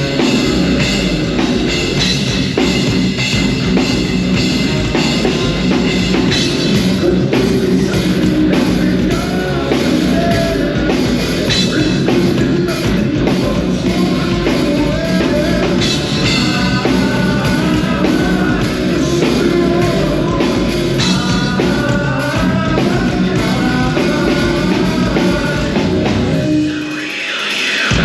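Live heavy rock band playing loud, with a pounding drum kit, heavy distorted guitars and bass, and a singer over the top. Near the end the low end drops out in a brief break.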